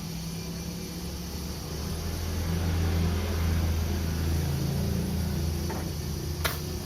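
Hot air rework station blowing, a steady low hum with airy noise that swells in the middle, then a sharp click near the end.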